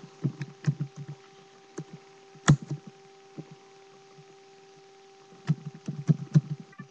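Scattered knocks and clicks close to the microphone, typical of handling near a webcam: a cluster near the start, one louder knock about two and a half seconds in, and another cluster near the end, over a steady electrical hum.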